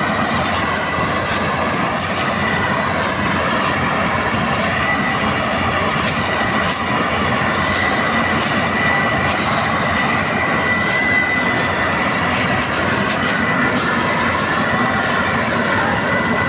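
Combine harvester running, a steady machine din with a constant high whine over it and scattered light clicks.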